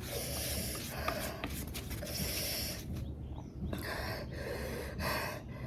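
A person breathing hard in repeated hissing breaths through the mouth and nose, with sniffs, reacting to the burn of an extremely spicy chip.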